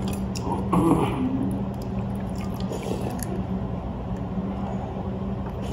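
A young child eating pho noodle soup with a spoon, small eating and spoon sounds over a steady low room hum, with a louder brief sound about a second in.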